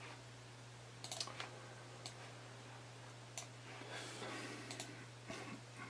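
A few faint, sharp clicks from someone operating a computer, spaced irregularly over a low steady hum.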